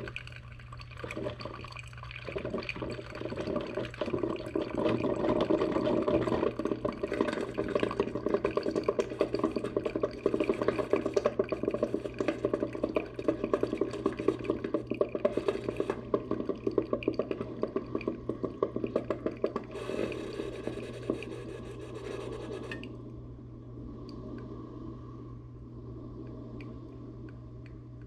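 Water running and filling a container, stopping abruptly about 23 seconds in.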